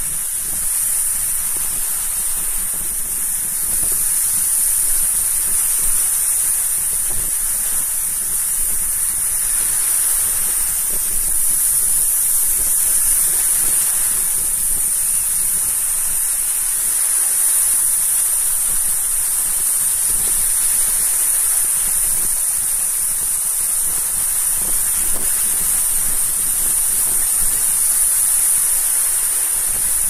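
Sea surf: small waves breaking and washing up the beach, a steady rushing hiss that swells slightly a few seconds in and then holds.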